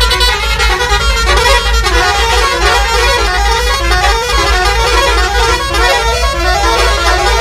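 Tourist bus's musical air horn playing a loud tune, its notes changing every fraction of a second, over a steady low rumble.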